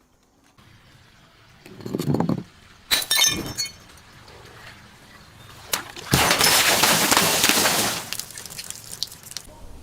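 Glass bottle being broken: a dull thump about two seconds in, a sharp ringing clink a second later, then about two seconds of loud crunching, shattering glass, with a few small clinks of shards after it.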